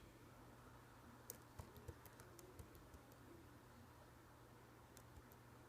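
Near silence: faint room tone with a scattering of light, irregular clicks and taps.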